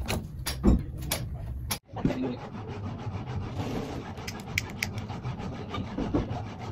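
A few clicks and knocks as PVC conduit is handled. After a brief break comes a steady hiss with scattered ticks from a handheld butane torch, heating the pipe to soften it for bending.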